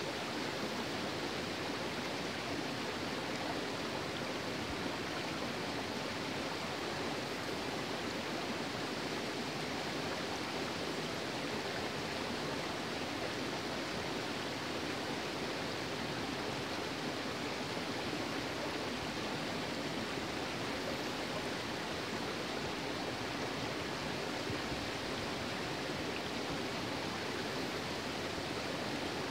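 Shallow stream running over rocks and stones, a steady rush of water.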